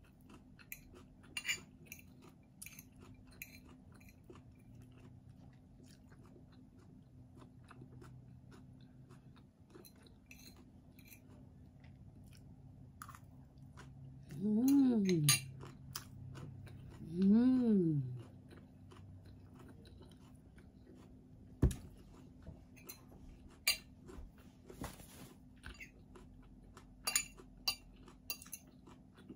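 A person chewing and crunching shredded mango, with scattered sharp clicks from a fork on a plate. About halfway through come two short hums, each rising then falling in pitch, the loudest sounds here.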